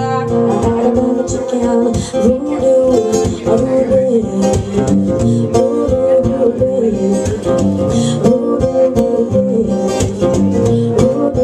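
Acoustic guitar strummed in a steady rhythm, with a woman singing over it, performed live.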